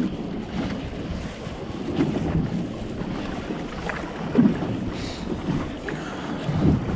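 Wind buffeting the microphone over small waves lapping against a boat's hull, with a few louder surges.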